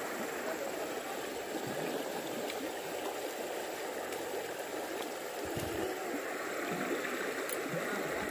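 Fast-flowing river water running steadily over rocks.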